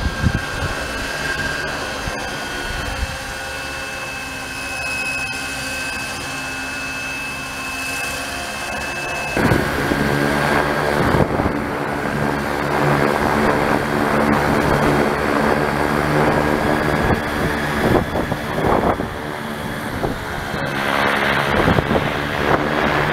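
Model helicopter with a diamond rotor head in flight: a steady high whine over the rotor noise. About nine and a half seconds in it turns to a louder, rougher rotor sound with a rapid beat.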